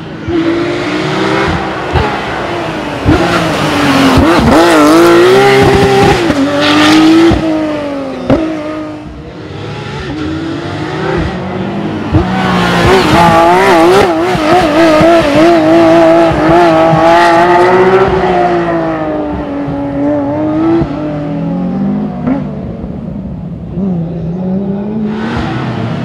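Porsche 997 GT3 Cup's flat-six racing engine revving hard and falling back again and again as the car accelerates, brakes and shifts through a tight coned course, with a few sharp cracks and tyres squealing in the corners.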